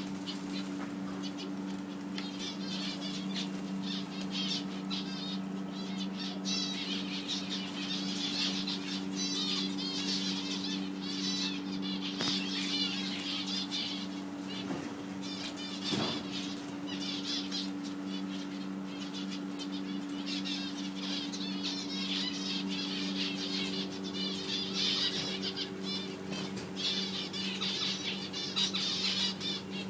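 Many small caged birds chirping and chattering continuously, over a steady low electrical hum, with a single sharp knock about halfway through.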